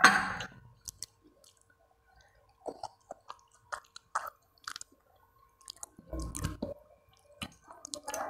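Eating rice and curry by hand: scattered wet squishes and clicks of fingers mixing food on a steel plate, and chewing. A loud knock right at the start, and a duller thud about six seconds in.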